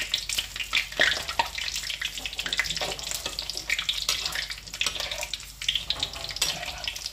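Battered tempeh slices deep-frying in hot oil in a wok, sizzling with dense, continuous crackling as they are turned over.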